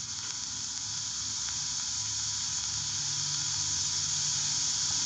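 Steady hiss of air and petrol spray rushing through a carburettor venturi, a sound effect on an animated instructional film's soundtrack played over a loudspeaker; it slowly grows louder.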